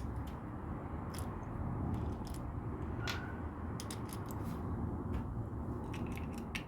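Scattered light clicks and taps of plastic LEGO pieces being handled, over a steady low rumble of road traffic passing outside.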